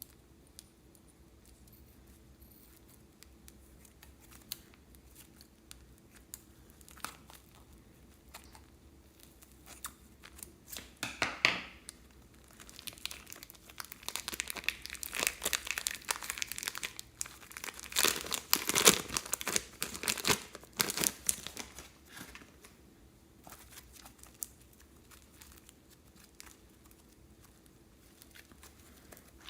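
Plastic piping bags crinkling and rustling as they are handled and squeezed, in a crackly stretch through the middle, with faint ticks and taps before and after.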